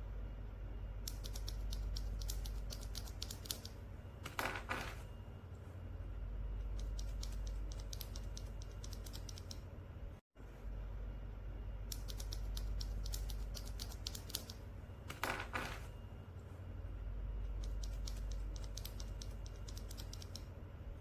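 Typing on a mechanical keyboard with Gateron Box Ink V2 switches: runs of quick key clacks in bursts of a couple of seconds. Twice there is a short, scratchier sound, all over a low steady hum.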